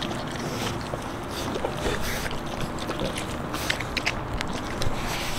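French Bulldog puppies chewing and tearing at a whole raw chicken: irregular wet crunches and snaps of meat and small bones over a steady outdoor rumble.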